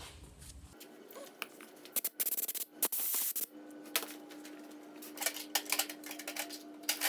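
Compressed air blowing out the small Briggs & Stratton carburetor's jet and passages: two short hissing blasts about two to three seconds in, with light metallic clicks and taps of the parts being handled.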